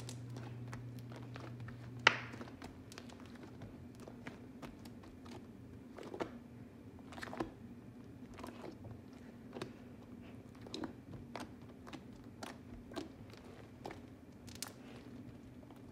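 Homemade slime being kneaded and squished by hand, giving irregular small clicks and pops. The sharpest comes about two seconds in.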